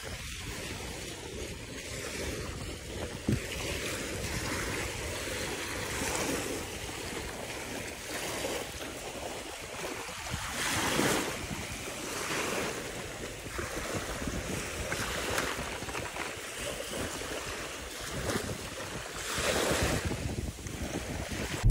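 Small sea waves washing onto a beach, a swell of surf every four or five seconds, with wind rumbling on the microphone.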